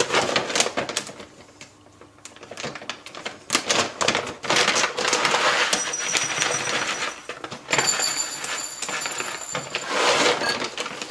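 Dry chinchilla food pellets rattling and clicking as they are poured into a food bowl, in several bursts of rapid small clicks.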